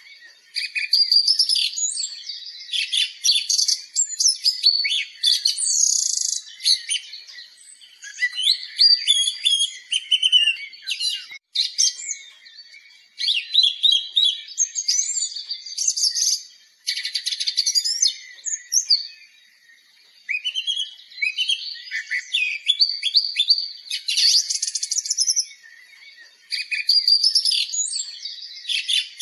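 Several songbirds singing at once: a busy, overlapping mix of chirps, trills and whistles, with short lulls now and then.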